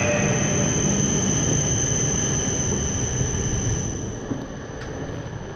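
Train running noise: a steady rumble with a steady high whine, dying down about four seconds in.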